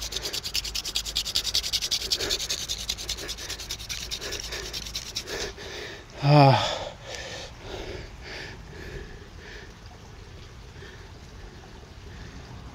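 A hand-drill fire set being worked: palms spinning a cattail spindle in a cottonwood-root hearth board, making a fast, even rubbing for about five seconds before stopping. Just after it stops comes a loud groan of effort that falls steeply in pitch, followed by heavy breathing.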